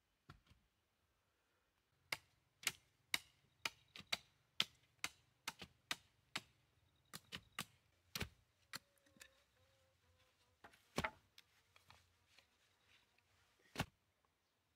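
A run of sharp knocks or taps, about two a second from two seconds in, then sparser and uneven, the last loud one near the end.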